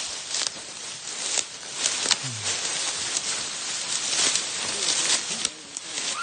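Footsteps crunching through dry leaf litter and brush, with steady rustling and many sharp crackles of twigs and branches brushing past.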